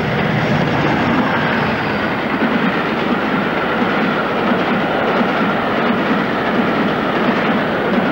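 Passenger train running steadily along the line: a continuous rumble of wheels on the rails.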